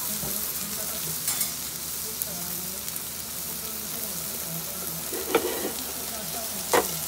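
Ika-yaki and udon sizzling steadily on a large iron teppan griddle. A stainless steel dome lid clanks against the griddle a couple of times near the end, the sharpest knock just before the end, as it is lifted and set down.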